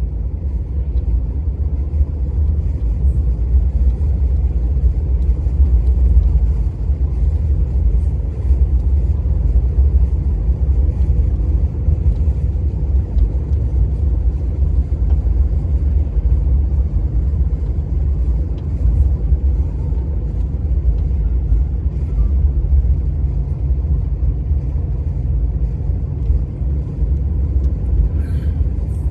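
Steady low rumble, with a short rustle about a second before the end.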